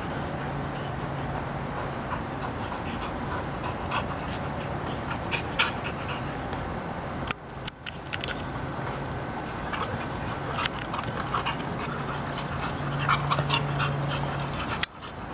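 Two American Bulldogs play-wrestling: dogs breathing hard and making mouthy noises, with scattered short, sharp sounds, over a steady low hum.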